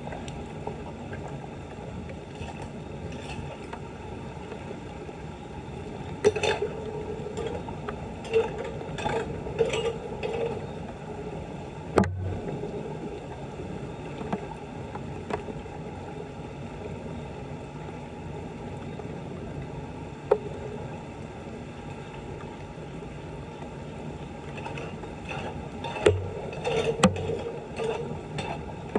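Floodwater running steadily, with bursts of splashing and knocking from debris being cleared about six to ten seconds in and again near the end, and a single sharp knock about twelve seconds in.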